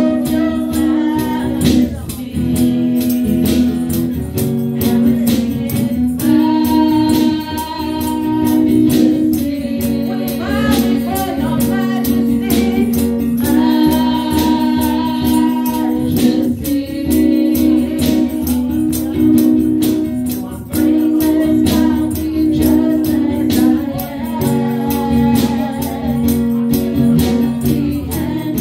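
Live worship singing: a woman's lead vocal through a microphone and sound system, with backing singers, holding long notes over sustained instrumental chords and percussion that keeps a steady beat.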